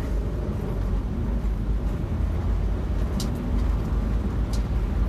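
Steady low rumble of a car driving on the road, heard from inside the cabin: engine and tyre noise. Two faint brief clicks a little over a second apart in the second half.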